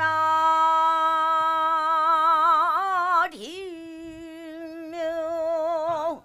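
A woman singing alone in Korean pansori style: one long held note with a vibrato that widens, a quick swoop down and back in pitch a little past halfway, then the same note held again until it breaks off near the end.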